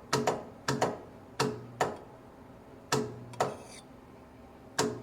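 Grob bandsaw blade butt welder's heat button being pulsed to anneal the weld. Each press gives a sharp click and a short low electrical hum from the welder, ended by another click. The pulses come quickly at first, then further apart.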